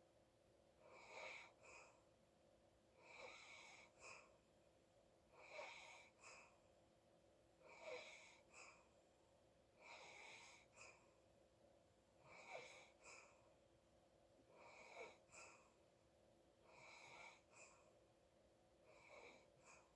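A sleeping person breathing in faint, regular, rasping breaths, about one every two seconds: nine in all, each a longer breath followed by a short second puff.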